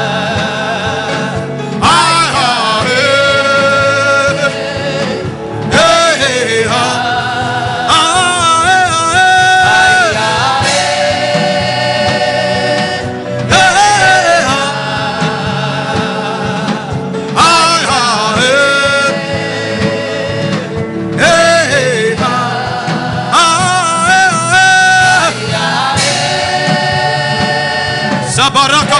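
Gospel worship singing over instrumental backing. The sung phrases come about every four seconds, with long held notes that bend and waver.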